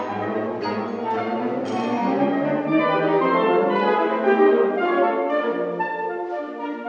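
A saxophone ensemble of twelve, sopranino down to bass saxophone, playing contemporary concert music: many held notes sounding together in chords over a low bass line, with a few sharp accented attacks in the first two seconds.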